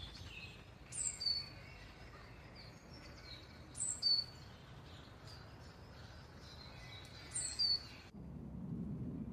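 Garden birdsong over a steady background hiss: several small birds chirping, one repeating a short high phrase with a quick falling sweep about every three seconds. Near the end the birdsong cuts off abruptly and a low rumble takes over.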